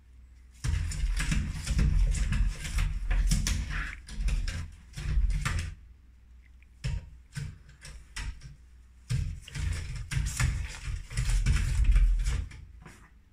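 Louvered wooden door rattling and knocking in its frame as a cat paws and scratches at its slats, in long bursts broken by short pauses.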